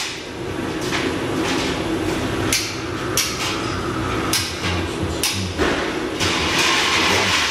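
Irregular hammer blows and metal knocks on a bare truck frame, about half a dozen strikes spaced unevenly. A longer hissing rush comes near the end.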